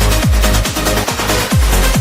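Background electronic dance music in a trance or techno style, with a steady four-on-the-floor kick drum of about two and a half beats a second. The beat drops out briefly just past the middle.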